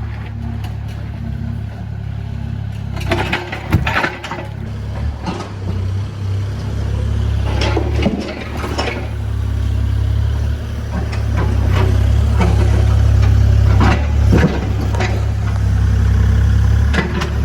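Diesel engine of a Kubota construction machine running steadily, working harder and louder in the second half. Sharp clanks and clatter of concrete and the machine's steel come several times.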